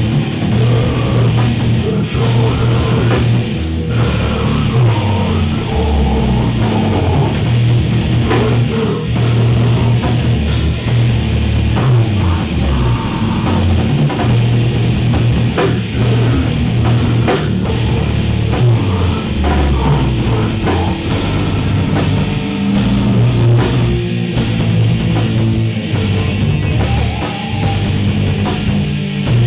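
A live band playing loud heavy rock: electric guitars and a drum kit.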